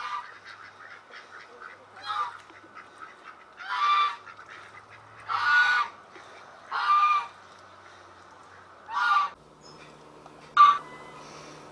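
Domestic geese honking: about six loud, separate honks, several lasting nearly a second, with softer short calls between them.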